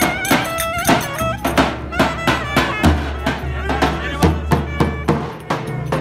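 Lively Turkish folk dance music: a high melody that steps up and down in pitch over a driving, steady drum beat and heavy bass.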